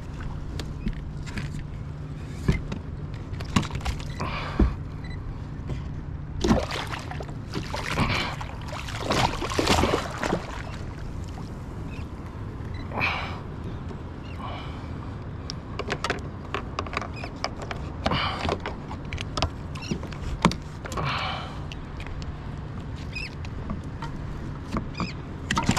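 Irregular knocks, clicks and short noisy bursts aboard a fishing kayak, over a steady low hum.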